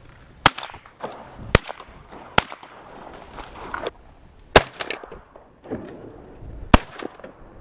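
Shotguns firing at ducks: five sharp, loud shots about a second apart, spread over several seconds, each with a short echo.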